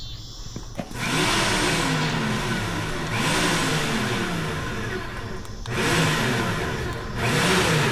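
A power tool's motor running in four spells of one to two seconds each, its pitch rising and falling within each spell.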